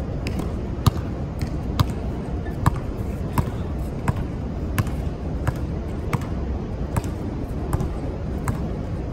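A basketball being dribbled on a hard outdoor court: a steady bounce about every three-quarters of a second, over a steady low background rumble.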